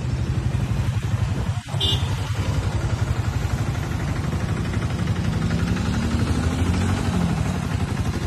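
A motor vehicle engine running steadily with a rapid even pulse, briefly dipping about one and a half seconds in.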